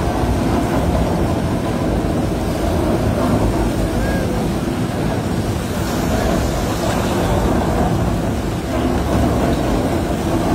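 Steady low rumble of heavy machinery running continuously, with no distinct knocks or pauses.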